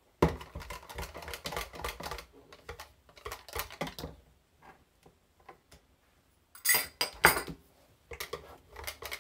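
Wire whisk beating an egg into thin chapati batter in a measuring jug: quick rattling ticks for about four seconds, a short pause, then a few louder clinks and more ticking near the end.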